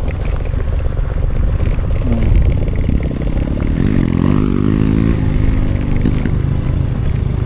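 Motorcycle engine running under load over a steady low rumble, revving up and rising in pitch about three and a half seconds in, then holding for a couple of seconds.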